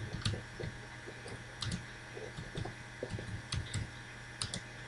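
Faint, irregular clicking from working a computer keyboard and mouse, over a low steady hum.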